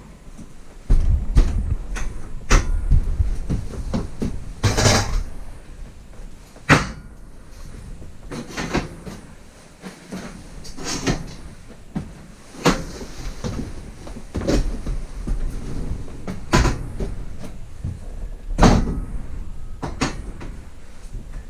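Hands-on fitting work: a string of sharp knocks and bumps as parts are handled and set in place, with scraping and rustling in between.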